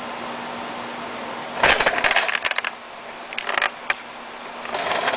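Two bursts of rapid clattering clicks, like hard plastic or metal parts rattling against each other: a longer one about two seconds in and a shorter one past the middle, with a few single clicks after.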